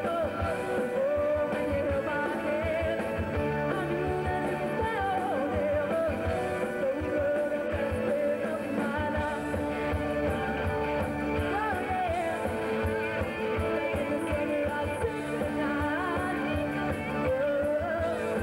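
A live rock band playing: a lead vocalist singing over electric guitars, keyboards and a steady drum beat.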